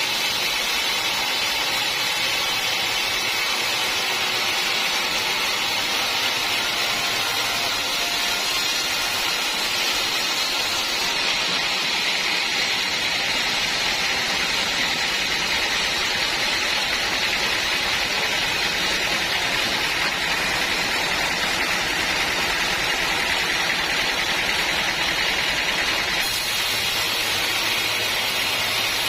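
Sawmill saw running through old teak wood, making a steady, even noise that does not let up.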